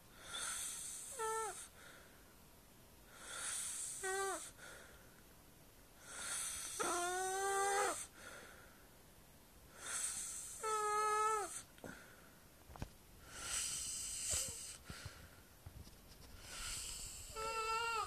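A sleeper snoring: each breath, about every three seconds, is a hiss that ends in a high, squeaky, meow-like whistle that dips slightly in pitch. One squeak near the middle is longer, and one breath, about two thirds of the way in, comes without a squeak.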